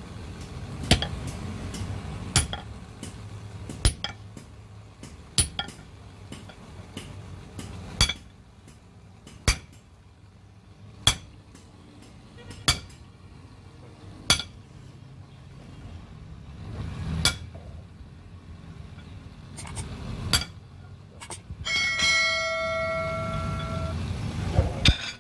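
Sledgehammer blows on metal, each a sharp clang, about every one and a half seconds at first and then further apart. Near the end a struck piece of metal rings on a steady tone for about two seconds.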